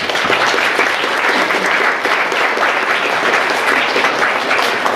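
Audience applauding: steady, dense clapping that dies away near the end.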